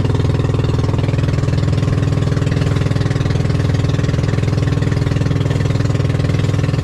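Outrigger boat's engine running steadily under way, a loud, even, rapidly pulsing drone.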